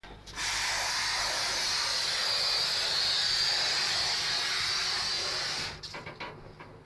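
Two-part spray foam gun spraying: a steady, loud hiss for about five seconds that cuts off abruptly, followed by a few faint clicks.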